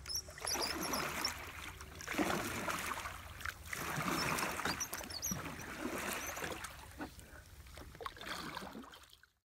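Oars of a small rowboat pulled through the water, each stroke a swish and splash, coming about every one and a half to two seconds with a few light knocks in between. It cuts off suddenly near the end.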